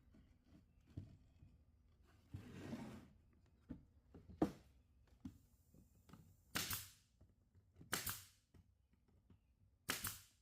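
Scattered knocks and a few short scraping strokes.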